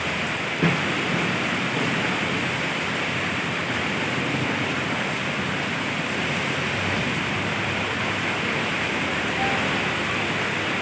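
Steady hiss of rain falling, with a single short knock just under a second in.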